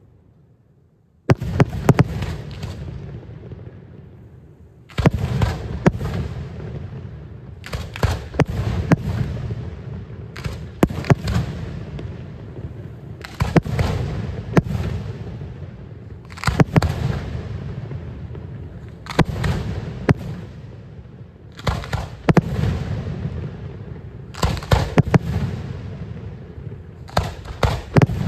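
Fireworks display: about a second in, a volley of loud sharp bangs starts, followed by more volleys every two to three seconds, each a cluster of several reports with a rolling rumble after it.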